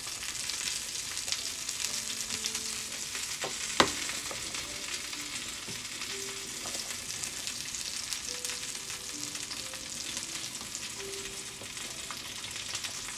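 Pot of chicken soup simmering, a steady bubbling hiss, while a metal ladle stirs through the broth. One sharp clink of the ladle against the stainless-steel pot about four seconds in.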